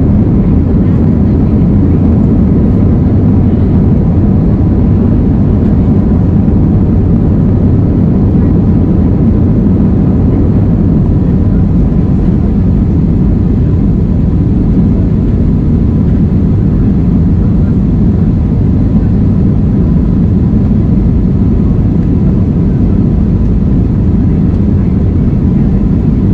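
Jet airliner's engines and airflow heard from inside the passenger cabin during the takeoff climb: a loud, steady, deep rumble with a faint steady whine above it.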